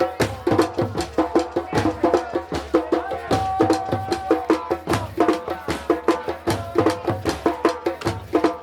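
Several drums played together in a fast, driving rhythm, with many quick strokes and pitched drum tones; a short held note sounds over them partway through.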